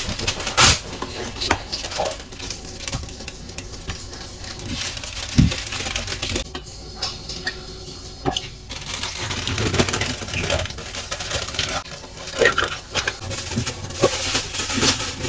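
Kitchen handling noises: baking paper and aluminium foil crinkling and rustling, with scattered light clinks and knocks of metal cookware.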